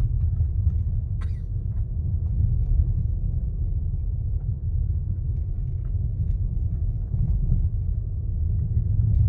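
Car driving on a dirt road, heard from inside the cabin: a steady low rumble of tyres and engine, with a faint click about a second in.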